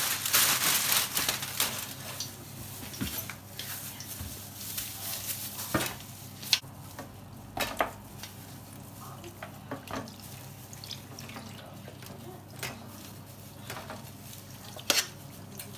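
Aluminium foil crinkling for about the first two seconds, then scattered clicks and knocks of kitchen handling as raw chicken pieces are taken from a steel bowl and laid on a metal baking tray.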